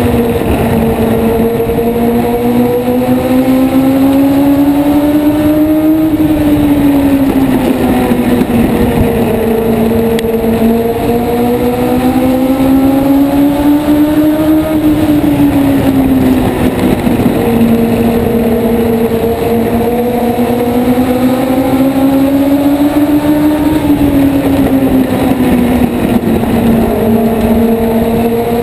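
Race car engine heard onboard at racing speed, its note rising as it accelerates down each straight and dropping as it lifts into the turns, about every nine seconds, three times over, lap after lap.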